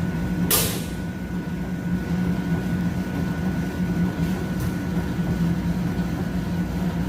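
Sesame-oil mill machinery running with a steady low hum and a faint high whine. A short hiss comes about half a second in.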